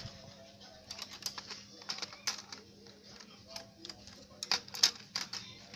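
Hard plastic clicking and clattering: a clear plastic rubber-band loom and kit pieces knocking against the plastic compartment tray as they are handled and lifted. Irregular sharp clicks start about a second in, with the loudest cluster near the end.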